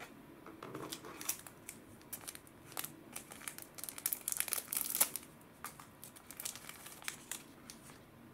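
Small clear plastic packet crinkling and tearing as it is opened by hand, a dense run of sharp, irregular crackles, loudest about four to five seconds in.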